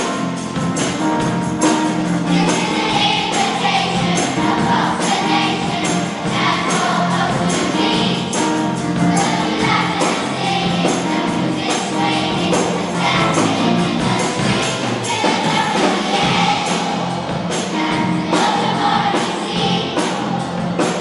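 A primary-school children's choir singing with a full concert orchestra accompanying them.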